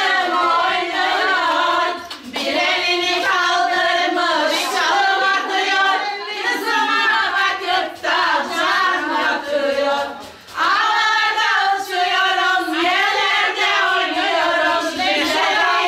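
High voices singing an ornamented, wavering melody in short phrases with no instruments, and a few sharp hand claps.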